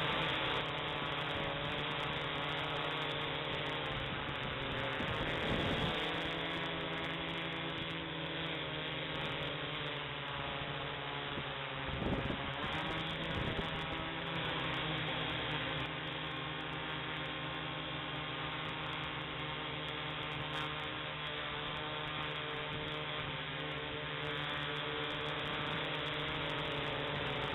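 Ideafly I-Fly4 quadcopter's motors and propellers humming steadily in flight, heard through its onboard camera's microphone. The pitch wavers briefly about five seconds in and again about twelve seconds in.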